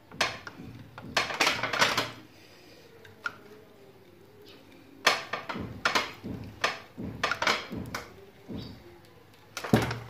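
Cable being pulled by hand in jerks through a homemade wire stripper of steel bearing rollers and a cutter blade: short scraping, rattling strokes as the blade slits the insulation. There is a burst about a second in, a pause, then a run of strokes about one or two a second from about five seconds in, and another near the end.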